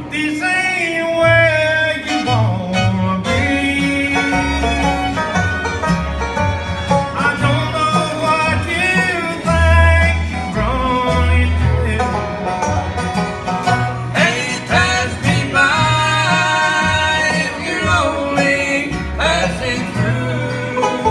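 Bluegrass band playing live, with banjo and fiddle over a steady bass line.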